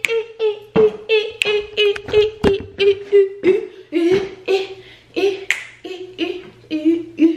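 A woman's voice chanting a wordless, rhythmic tune in short repeated syllables held near one pitch, about three or four a second. A few sharp claps or hand slaps are mixed in.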